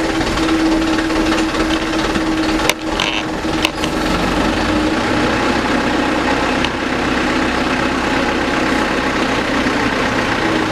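Heavy diesel engine idling steadily, while shovels and rakes scrape over loose asphalt, with two or three sharp clinks around three seconds in.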